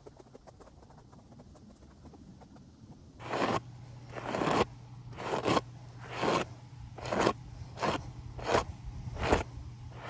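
Bristle hairbrush dragged in repeated strokes through a horse's long mane, brushing out tangles soaked with detangler. About eight scratchy strokes, a little under one a second, starting about three seconds in.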